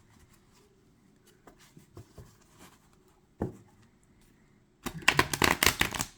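Oracle cards being shuffled by hand: a few faint soft taps, then a loud burst of rapid card flicks near the end.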